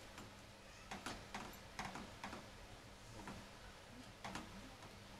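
Silicone spatula stirring thick, reducing milk in a nonstick frying pan: faint, irregular clicks and scrapes, several close together in the middle and one more near the end, as the milk thickens into mawa (khoya).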